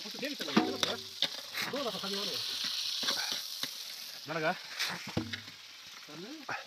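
Steady sizzling hiss from a steaming cooking pot over a wood fire, fading out about four and a half seconds in, with men's voices talking over it.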